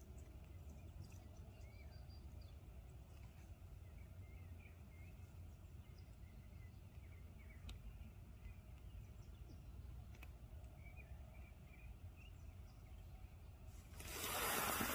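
Faint outdoor ambience: a low steady rumble, with small birds chirping softly now and then. Near the end a loud rushing noise swells up and lasts about a second and a half.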